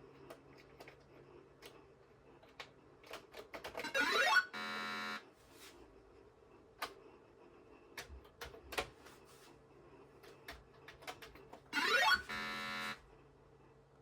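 Scattered clicks, then twice a rising electronic sweep that goes straight into a buzzy square-wave beep about a second long, from a Sharp MZ-711's built-in speaker, over a faint steady hum.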